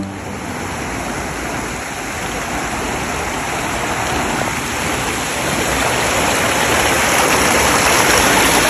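Rushing water of a waterfall cascade: a steady, even roar of falling and splashing water that grows gradually louder.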